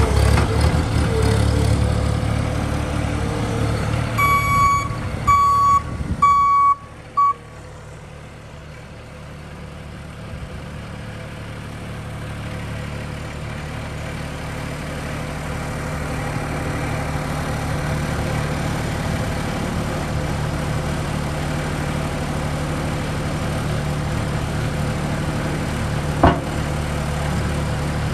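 A mini skid steer loader's engine running, with four short electronic warning beeps between about four and seven seconds in. The engine noise then drops sharply and climbs slowly back to a steady run, with one sharp click near the end.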